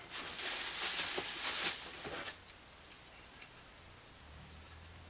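Plastic packaging and bubble wrap rustling and crinkling as hands dig into the box, for about two seconds, then a few faint clicks as parts are handled.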